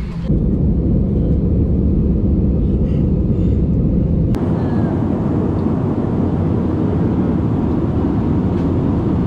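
Jet airliner's engines and airflow heard from inside the cabin during the climb after takeoff: a steady, loud, low noise. The sound shifts abruptly twice, about a third of a second and about four seconds in, where shots are cut together.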